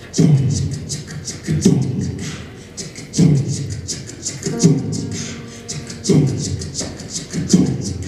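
Young men's a cappella jazz choir singing into handheld microphones, with vocal percussion: a deep, downward-swooping kick-drum sound about every second and a half and quick hi-hat-like ticks between, under held sung chords.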